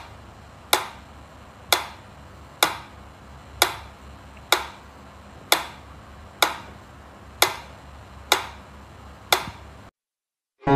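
Sharp ticks at an even pace of about one a second, roughly ten in all, each dying away quickly, then cutting off near the end.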